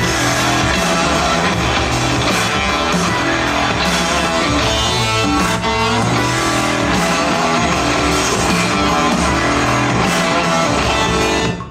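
Rock music with strummed and electric guitar and a steady beat, played loudly through a Mifa WildBox 60 W Bluetooth speaker as a sound test. The music cuts out briefly near the end.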